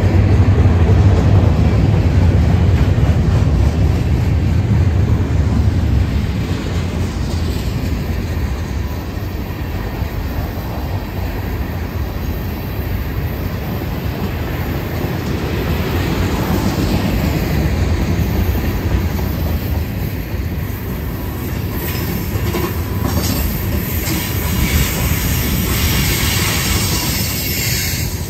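BNSF freight train rolling past, steel wheels running on the rails with a steady rumble. High-pitched wheel noise grows from about two-thirds of the way in.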